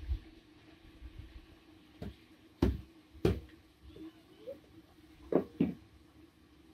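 Small hatchet chopping kindling on a hard floor: four sharp knocks, two a little under a second apart in the middle and two in quick succession near the end.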